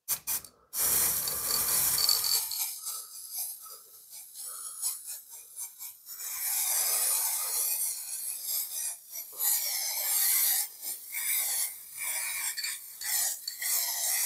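Aerosol spray-paint can hissing in repeated bursts, some short and some a few seconds long, as paint is sprayed on. A few quick rattles of the can come at the very start.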